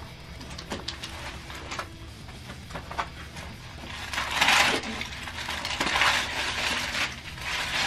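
Crumpled brown kraft packing paper rustling and crinkling as hands dig through a cardboard shipping box, with scattered light taps and knocks. The rustling gets louder from about four seconds in.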